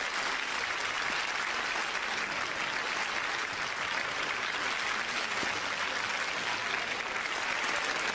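Theatre audience applauding: many people clapping steadily.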